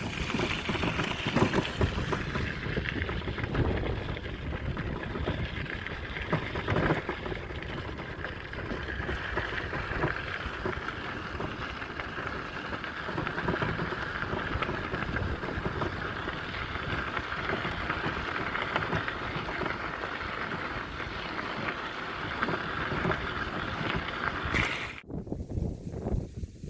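Wind buffeting the microphone over a steady rumbling noise, cutting off abruptly near the end.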